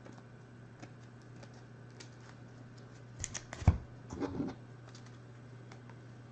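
Sports trading cards being sorted by hand on a table: soft scattered clicks and shuffling, with a short cluster of sharper taps and one loud knock about three and a half seconds in, then a brief rustle.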